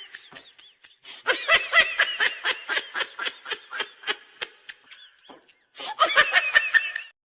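A comedy sound-effect laugh: a person laughing in quick, rhythmic ha-ha pulses, about five a second, that die away about five seconds in. A short burst of laughter follows about a second later and cuts off suddenly.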